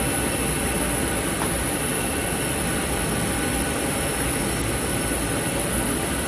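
Steady cabin noise inside a parked Boeing 737 MAX 8: ventilation air hissing over a low rumble, with a thin high whine.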